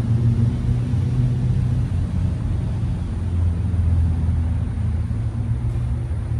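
A motor vehicle engine running steadily: a low rumble with a deep hum that drops slightly in pitch about two seconds in.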